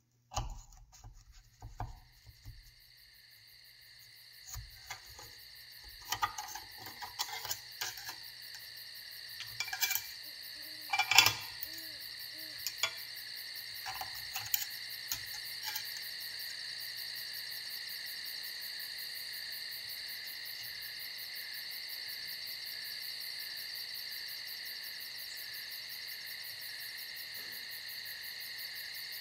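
Knife and fork clicking and scraping against the cast-iron waffle iron and plate as a waffle is cut, scattered taps through the first half. Underneath, a steady high chirring insect chorus, like crickets, grows louder over the first half and then holds.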